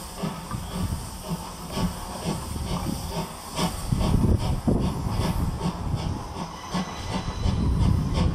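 Steam locomotive C11 123, a tank engine, working a short train: hissing steam and chuffing exhaust beats over the low rumble of the train. The beats are uneven at first and settle to about three a second from about halfway.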